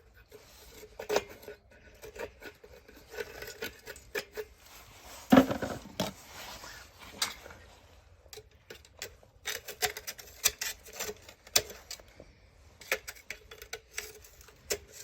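Metal heater parts being handled and set down: scattered clicks, clinks and knocks, with one louder clunk about five seconds in.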